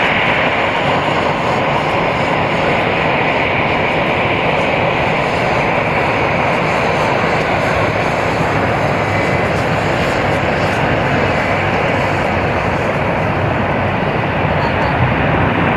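Airbus A320's twin jet engines at takeoff thrust during the takeoff roll, a steady, loud engine noise.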